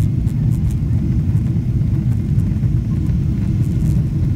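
Steady low rumble of an airliner's jet engines and rushing air, heard from inside the passenger cabin in flight.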